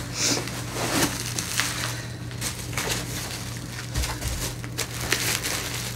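Bubble wrap and plastic packaging crinkling and crackling as bubble-wrapped bundles are pulled out of a cardboard box, with many small irregular crackles and a steady low hum underneath.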